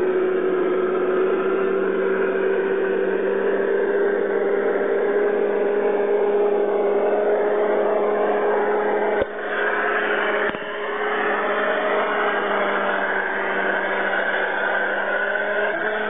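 Steady whir of a small electric motor, its tone edging slightly higher over time. Two short clicks come about a second apart midway through.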